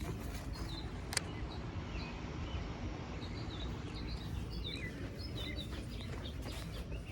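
Faint steady hum of a neighbouring Goodman central air conditioner's outdoor unit running, with birds chirping over it. A single sharp click about a second in.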